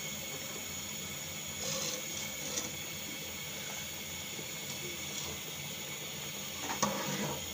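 Pot of sela rice at a rolling boil, parboiling for biryani, bubbling steadily. A metal slotted skimmer clinks and scrapes in the pot a couple of times about two seconds in.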